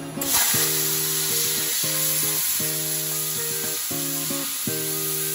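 HZXVOGEN HVM270 plasma cutter's arc hissing steadily as it cuts a 6 mm metal plate, striking up about a quarter second in.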